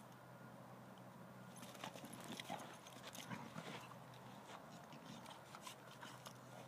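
Two dogs scuffling and wrestling on a dirt ground: faint, irregular clicks and scrapes of paws and bodies that start about a second and a half in and die down near the end.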